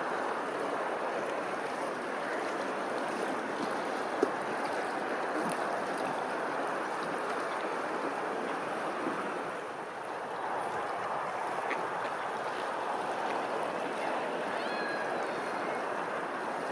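Running water with a steady rushing sound, broken by a single sharp click about four seconds in.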